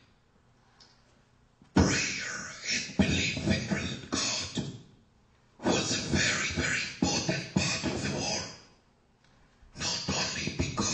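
A person's voice, starting about two seconds in, in three stretches of about three seconds each with short pauses between.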